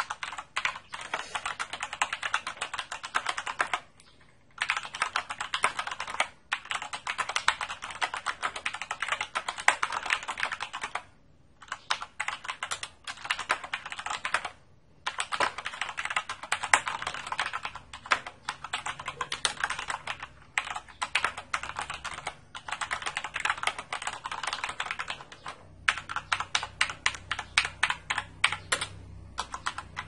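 Typing on a Corsair Vengeance K70 mechanical keyboard with tactile Cherry MX Brown switches: rapid runs of keystrokes, broken by a few short pauses.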